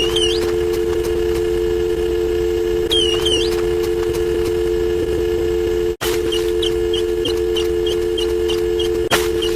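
Telephone dial tone: a steady two-note hum, the North American 350 and 440 Hz pair. Short chirping sweeps come near the start and about 3 seconds in, it cuts out for an instant about 6 seconds in, and faint ticks follow at about three a second.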